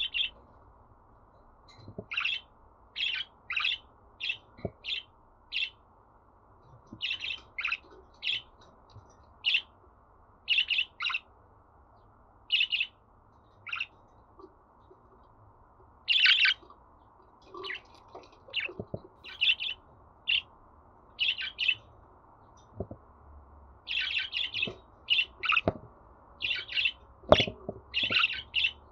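Budgerigar chirping and warbling in quick clusters of short, high chirps separated by brief pauses.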